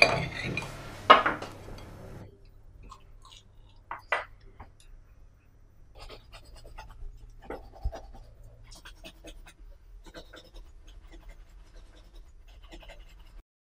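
Small household handling noises: a sharp knock about a second in, then soft scattered clicks, taps and scrapes over a low steady hum.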